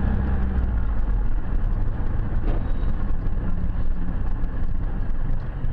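Car driving in town, heard from inside the cabin: a steady low rumble of engine and road noise.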